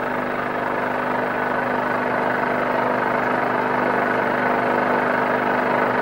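Steady hiss of radio static with a low hum running under it, growing slightly louder. It is the noise of a radio left running to catch voices of the dead.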